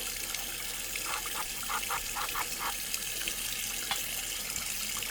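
Water running steadily from a tap into a sink as a screwdriver is washed clean of sticky tape residue. About a second in comes a quick run of short squeaks as the handle is rubbed.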